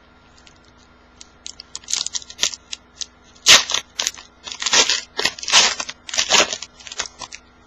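A trading-card pack wrapper being torn open and crinkled. The irregular crackling and crinkling starts about a second in, with its loudest bursts in the middle.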